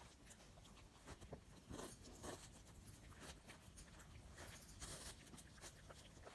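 Faint, irregular crunching and chewing as a Cavalier King Charles Spaniel puppy bites into a chunk of raw green apple.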